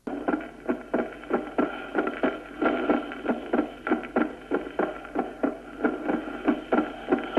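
Recorded heart sounds beating in a regular rhythm over a steady hiss, demonstrating fixed splitting of the second heart sound, the split staying the same in inspiration and expiration as in atrial septal defect.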